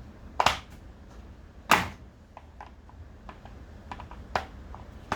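Sharp knocks and clicks of tools on string-trimmer parts during disassembly, as a stuck part is worked at. There are three louder knocks, the loudest about two seconds in, with lighter ticks between them.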